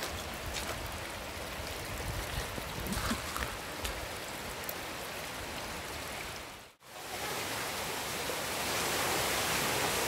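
Shallow spring-fed stream running over stones in a rock canyon, a steady rush of water. About seven seconds in, the sound drops out for an instant and comes back louder and fuller, as a small waterfall pouring from the rock is near.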